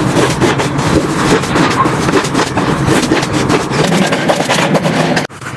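Slime being squished and worked by hand: a dense run of sticky clicks, pops and crackles. It cuts off sharply near the end and a softer, hissing texture takes over.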